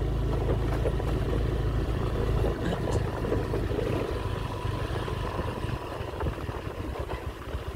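Wind buffeting the microphone: a low, uneven rumble, heaviest in the first half and easing after about five seconds.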